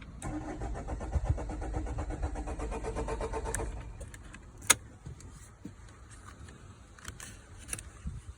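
Vauxhall Vivaro van's starter motor cranking the engine at an even rhythm for about three and a half seconds without it firing, then stopping, followed by a single sharp click: a crank-but-no-start fault.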